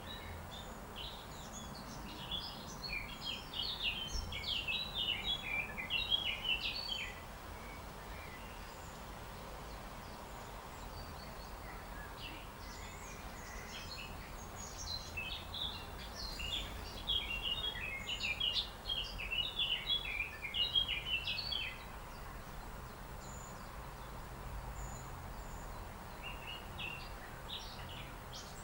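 Small bird singing a fast twittering run of high chirps, in long bouts of several seconds with pauses between, over steady low outdoor background noise.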